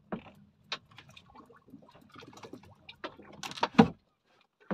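Scattered light knocks and clicks, with a louder cluster of knocks about three and a half seconds in.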